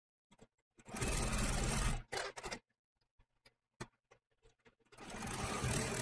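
Domestic sewing machine running a small zigzag stitch through layers of fabric, batting and appliqué, in stop-start spurts: a run of about a second, a short burst, then a pause of a couple of seconds with a few small clicks before it starts sewing again near the end.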